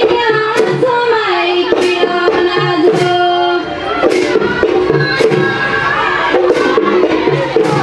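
Live Deori Bisu folk music: high voices sing a melody together over a dhol drum beating a steady rhythm, about one low thump a second, with sharp, bright strikes in between.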